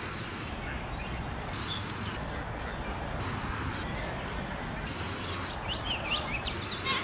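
Steady outdoor background noise, with a quick run of short, high bird chirps near the end.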